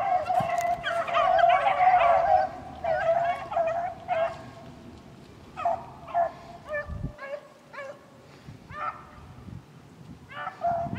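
A pack of beagles baying as they run a rabbit's track. Many voices overlap at first, then thin after a few seconds to separate bays and yelps.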